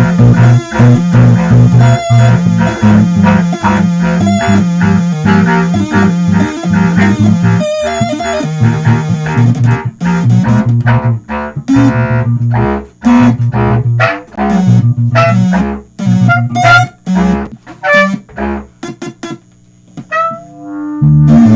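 Instrumental music: an electric bass line under plucked guitar notes. The playing is dense for about the first half, then thins out to sparser notes. Near the end it drops out briefly before the bass comes back in.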